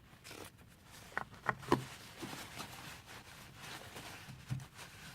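Faint handling noise: a few light clicks and taps in quick succession just over a second in, and one more knock near the end.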